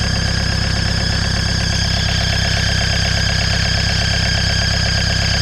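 1987 VW Jetta MK2 1.6-litre turbo diesel idling steadily with an even, fast rhythm, running again after its injection pump head O-ring reseal restored the fuel prime. A steady high-pitched tone sits over it.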